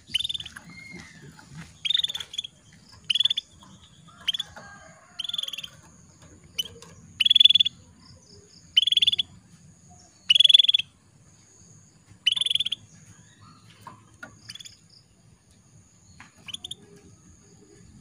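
Female canary calling: short, bright calls repeated every one to two seconds, growing fainter in the last few seconds. This is a female's call to a male, used as a lure to stir male canaries into singing.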